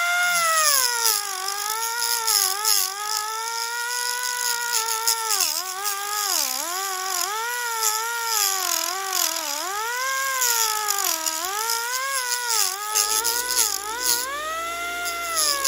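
Quarter-inch pneumatic mini die grinder with a cutoff disc running with a high whine and air hiss, its pitch sagging and recovering over and over. A low steady hum joins about three-quarters of the way through.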